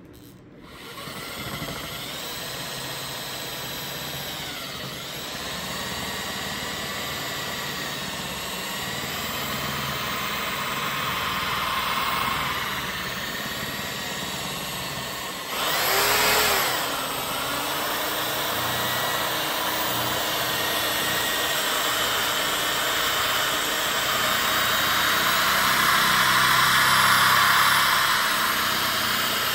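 Corded electric polisher with a sponge buff starting up and running on an acrylic sheet, buffing out yellowing. Its motor whine wavers in pitch as the pad is worked, with a brief louder rush about halfway through and a slightly louder stretch near the end.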